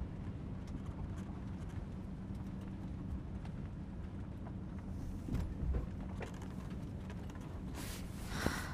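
Steady low road and engine rumble heard inside a moving car's cabin, with a brief louder rush of noise near the end.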